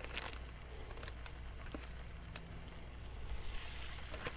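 Fish frying in hot grease: a steady sizzle with scattered crackling pops.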